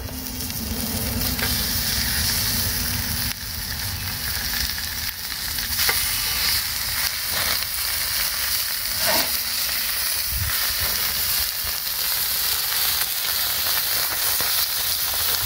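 Thick raw steaks sizzling hard as they are laid onto a very hot flat steel griddle over a wood campfire. The steady hiss builds over the first couple of seconds, with a few light clicks of the metal cooking utensil on the griddle.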